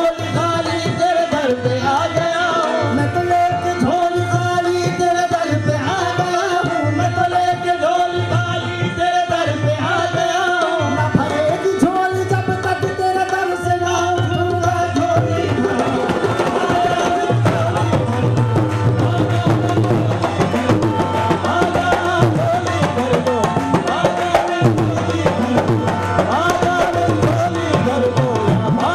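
Instrumental interlude of a qawwali ensemble: a keyboard and harmonium melody over a steady tabla and dholak rhythm. About halfway through, the held melody thins out and the drumming grows busier.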